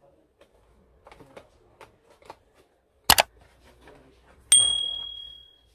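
Subscribe-button sound effect: a sharp double mouse click, then a notification bell ding that rings out and fades over about a second. Faint rustling of small cardboard boxes being handled underneath.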